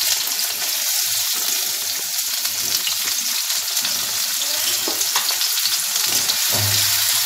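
Finely chopped onion sizzling steadily in hot ghee, freshly added for a tadka.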